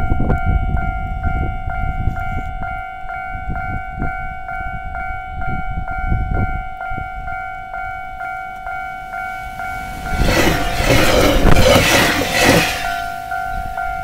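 Japanese level-crossing alarm bell ringing steadily, its two-tone ding repeating about two and a half times a second. From about ten seconds in, an electric train rushes past for about three seconds, a loud wash of noise over the bell.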